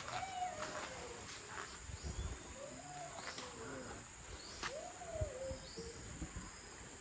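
Three drawn-out animal calls, each rising then falling and lasting under a second: one near the start, one about three seconds in and one near five seconds. Behind them runs a steady high whine.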